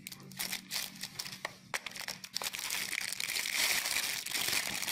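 Thin clear plastic packaging bags crinkling as they are handled: scattered crackles at first, turning into steadier crinkling from about halfway through.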